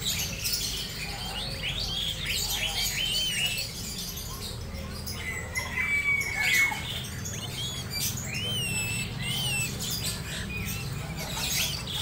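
Sooty-headed bulbul singing: a busy run of short chirps and whistled notes, with one longer held whistle about six seconds in.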